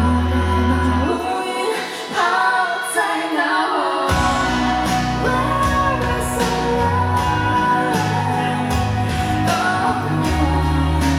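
Live pop song: a female singer singing over a band. The bass drops out about a second in and comes back in about four seconds in.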